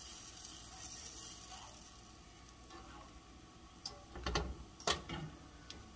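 Oil sizzling faintly in a cast-iron skillet under a tortilla, with a cluster of sharp clicks and knocks about four to five seconds in.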